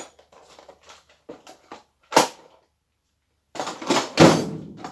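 Knocks and clatter of tools and drawers being rummaged through in a workshop: faint clicks, one sharp knock about two seconds in, then a louder, longer clatter near the end.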